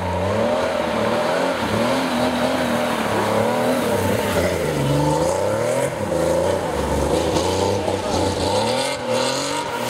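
Porsche rally car engine revving hard, its pitch climbing and dropping again and again through gear changes and throttle lifts.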